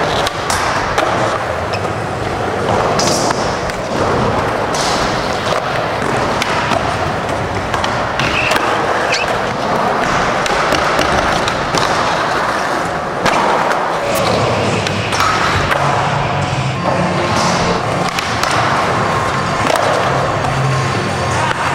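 Skateboard wheels rolling on a smooth concrete floor, a steady rolling noise broken by several sharp clacks of the board. Music comes in about two-thirds of the way through.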